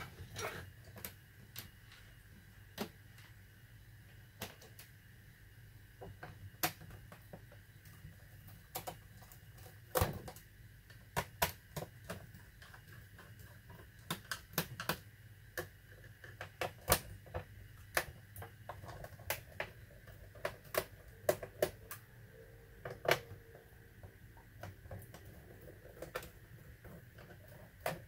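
Small screwdriver clicking and tapping against the screws and plastic base of a Compaq Contura 410c laptop as they are undone: scattered sharp clicks at an irregular pace, more frequent in the second half.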